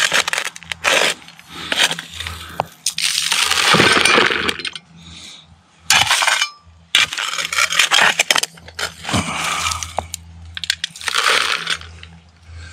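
Creek gravel being dug up for a gold-panning sample: stones clinking and knocking together, with repeated rough scraping bursts as the gravel is scooped.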